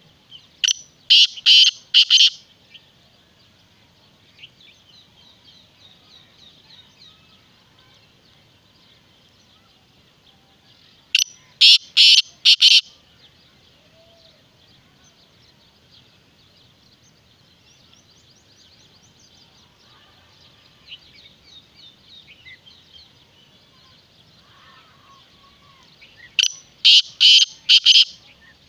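Black francolin calling three times, roughly twelve seconds apart. Each call is a loud run of four or five sharp, harsh notes lasting about two seconds. A faint steady high chirring runs behind.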